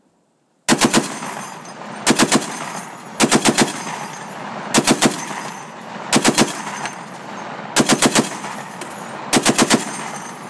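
M2 .50-caliber heavy machine gun firing about seven short bursts of three to five rounds each, roughly one burst every second and a half, starting just under a second in, with echo carrying on between bursts.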